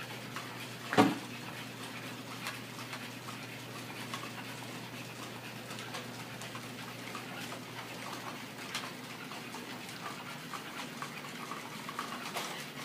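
NAO humanoid robot walking on carpet: light, irregular ticks and taps from its joints and feet over a steady low hum and hiss. A single loud thump about a second in.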